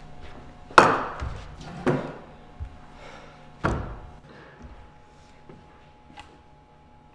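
Three loud thuds in a small echoing room, the first about a second in and the last nearly four seconds in, each followed by a short echo.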